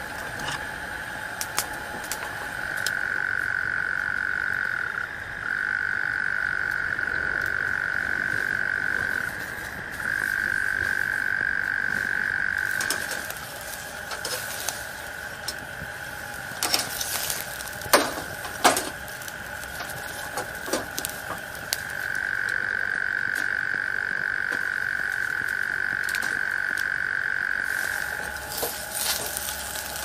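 A night-time animal chorus: a steady high trill that swells into long unbroken calls of several seconds each, stopping and starting again. About midway a few sharp clicks and snaps stand out, the loudest sounds here.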